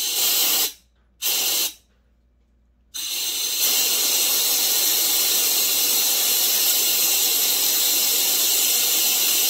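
Compressed air from a blow gun hissing through the cleaned-out muffler of a Stihl TS350 Super cut-off saw: two short blasts, then a steady blast from about three seconds in. Air passing freely through it shows the carbon blockage has been cleared.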